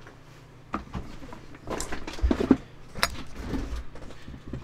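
Knocks, clicks and rustling from someone moving around a workbench and handling objects, including putting on headphones, over a faint low steady hum.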